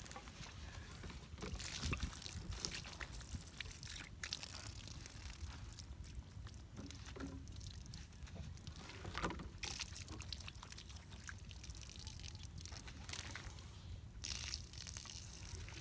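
Water pouring from a plastic pipe and splashing onto the ground as hands are rinsed under the stream.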